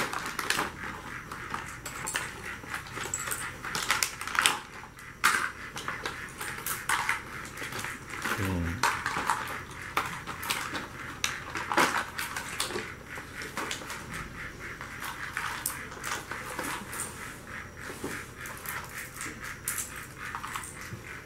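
Plastic toy train set pieces clattering and clicking irregularly as they are handled, with a short falling tone about eight seconds in.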